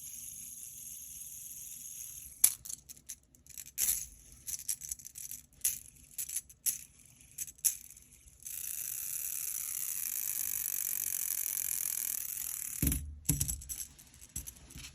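An aluminium geared fidget toy, the KTS Gear Storm, being worked by hand: a steady high whir while it spins, then a run of sharp metallic clicks as it is handled. A second whir starts about eight seconds in and is cut off by a low knock about thirteen seconds in, followed by more clicks.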